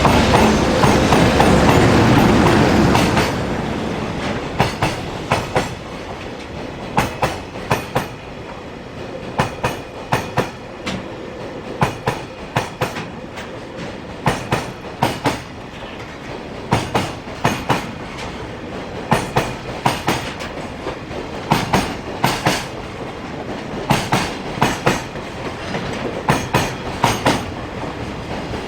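Container freight train passing close by. A loud rumble for about the first three seconds, then the wagons roll past with steady clickety-clack: groups of sharp wheel clacks every couple of seconds as each car's wheelsets cross the rail joints.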